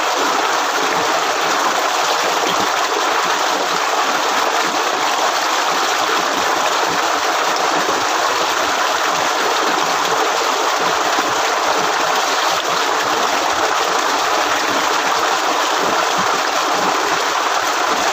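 Steady, loud rush of water gushing out of the outlet pipe of a motor-driven tubewell.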